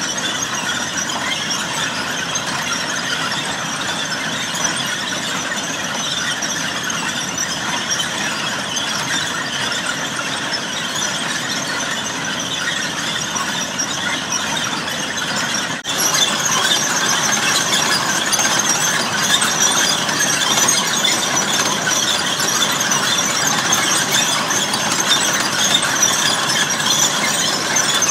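Continuous mechanical squealing and grinding, which gets louder after a sudden break about 16 seconds in.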